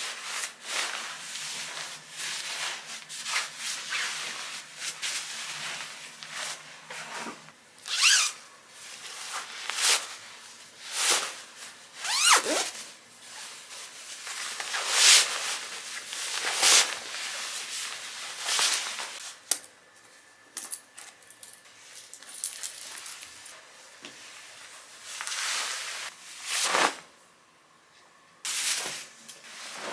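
Bedding fabric rustling and swishing as a duvet, its covers and a blanket are handled, shaken out and spread on a bed, in a string of irregular strokes with a short lull near the end.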